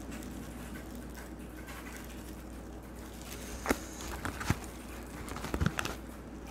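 Gloved hands handling marinated raw crab, making soft squishing and a handful of sharp clicks from about halfway in, over a low steady hum.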